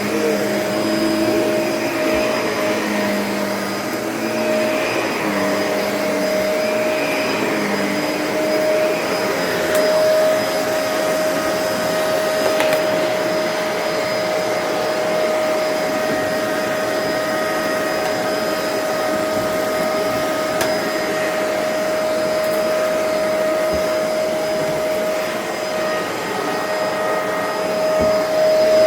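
Vacuum cleaner running steadily, its motor whine holding one pitch throughout.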